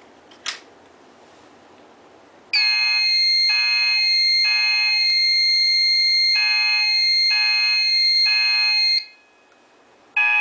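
Fire alarm sounding on a Notifier SFP-10UD panel setup: a pulsing alarm tone in the three-pulse temporal pattern over a steady high-pitched tone. It starts a couple of seconds in, after a single click, stops about a second before the end, then starts again.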